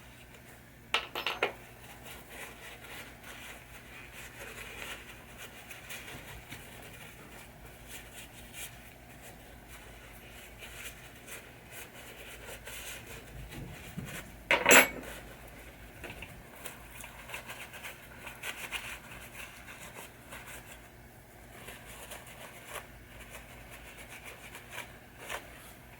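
Small metal parts of a pinball saucer kicker assembly being handled and cleaned: scattered light clinks and rubbing, with a sharper click about a second in and one loud ringing metallic clink near the middle.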